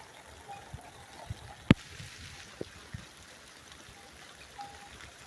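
Steady rain with water trickling and running off. A few sharp taps of raindrops hit the phone, the loudest about a third of the way in.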